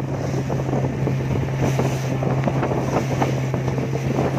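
Engine of a motorized long wooden river boat running at a steady, even pitch as it travels, with river water rushing and splashing along the hull and wind buffeting the microphone.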